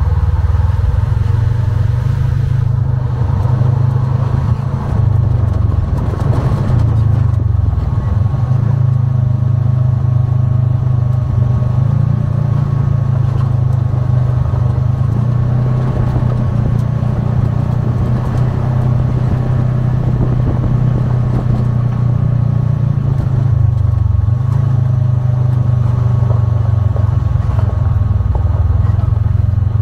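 Polaris RZR side-by-side's engine running steadily while driving off-road, its pitch dipping and rising a little with the throttle.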